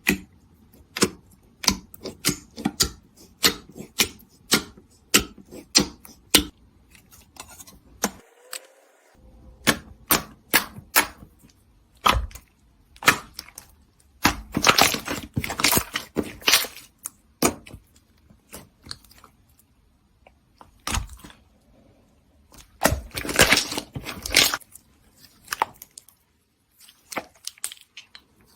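Slime being handled, giving a quick run of sharp clicks and pops, with two stretches of dense crackling about halfway through and again near the end.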